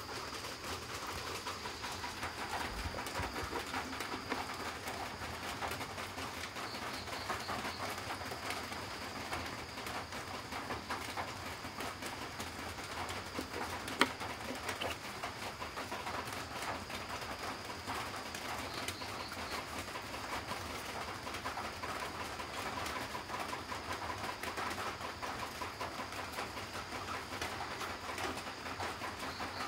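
Steady background noise, broken about halfway through by a single sharp click as a one-rupee coin is set down on a hard tabletop.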